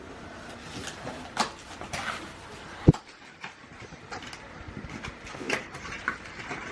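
Knocks, clicks and rustling as flat-pack chair parts and their packaging are handled and taken out of the box, with one sharp loud thud about three seconds in, as of a leg set down.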